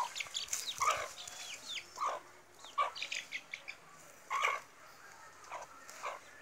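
Aseel hen clucking in short separate calls, about one a second, with thin high peeps from a chick between them.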